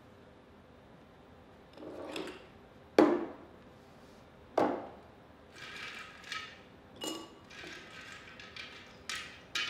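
Handling of things on a small table: two sharp knocks, then a run of glassy clinks and light rattles, with a few more knocks and clinks near the end, as glassware on the table is moved.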